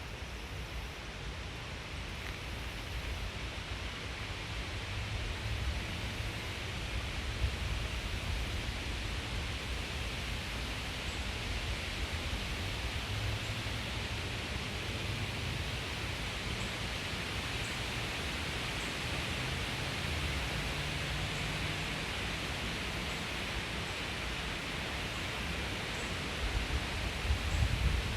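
Forest ambience: a steady hiss of outdoor background noise with a low, uneven rumble underneath that swells near the end, and a few faint high ticks now and then.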